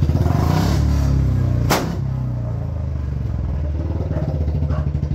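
Royal Enfield Bullet 350 single-cylinder engine running loud for the first couple of seconds, then one sharp crack of an exhaust pop (backfire) nearly two seconds in, after which it drops back to a quieter steady thump.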